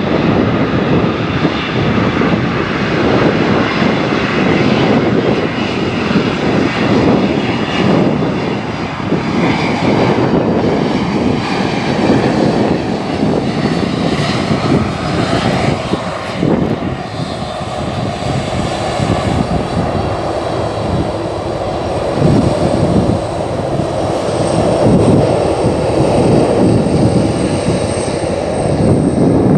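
Boeing 747-400F four-engine jet airliner on its landing roll, its engines running with a loud, steady roar. A thin high whine comes in during the last several seconds.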